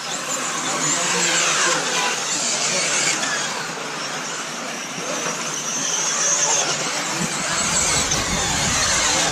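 RC racing buggies running on the track, their motors whining and revving up and down in overlapping high-pitched glides. A low rumble comes in about seven seconds in.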